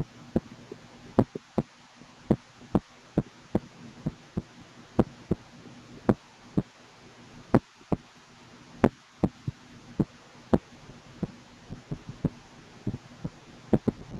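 An unborn baby's hiccups at 35 weeks of pregnancy, picked up by a microphone: sharp, irregular clicks about twice a second over a low, steady hum.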